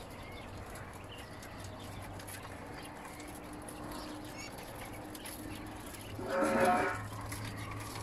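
A goat bleats once, loudly and briefly, about six seconds in, over a steady low hum and faint farmyard background with a small chirp a little earlier.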